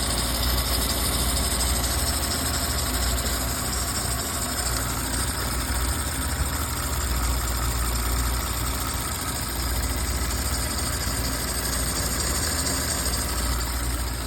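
Audi A6 3.0L V6 engine idling steadily.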